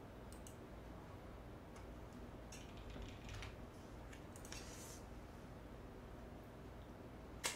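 Quiet eating sounds: scattered soft clicks and brief rustles as a piece of food is picked up by hand from a takeout container and eaten, with one sharper click near the end.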